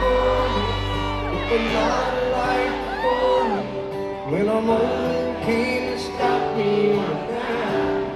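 Live country band playing through a large concert PA, heard from the crowd; the deep bass drops out about a second and a half in.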